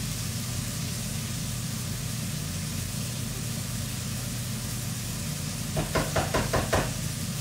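A spatula knocking and scraping in a kadai of frying tomato masala, a quick run of about seven knocks near the end, over faint sizzling and the steady low hum of the kitchen chimney's fan.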